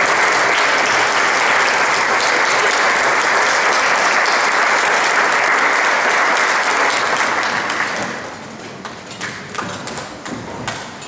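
Audience applauding a wind band. The applause dies away about eight seconds in and gives way to scattered taps, knocks and shuffles as the players settle into their seats, with a low thump near the end.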